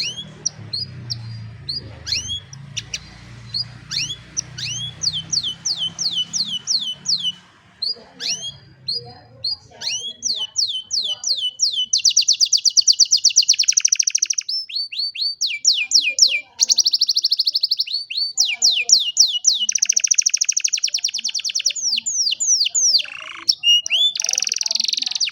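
An old canary singing: a run of quick rising chirps, then, from about halfway, long fast rolling trills strung together with more chirps.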